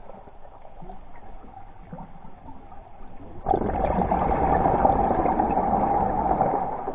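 Underwater bubbling rush of a scuba diver exhaling through a regulator. It starts suddenly about halfway through, runs for about three seconds, then fades.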